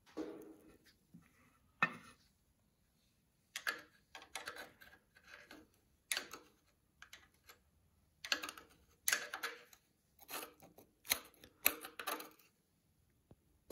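Flat-blade screwdriver scraping and picking old oil sludge out of the rocker-arm area of a VW Beetle's air-cooled engine cylinder head, metal scraping on metal in irregular bursts of clicks and scrapes with short pauses between. The sludge has built up from the engine sitting for about 40 years.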